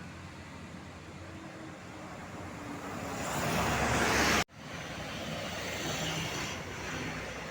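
Road vehicle passing close by, its noise swelling to its loudest about four seconds in, where the sound cuts off abruptly, followed by steady traffic noise.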